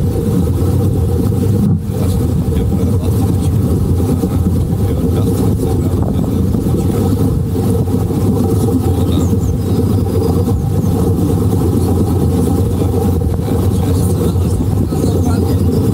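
Boat motor running steadily, a loud, even low-pitched sound that holds without change.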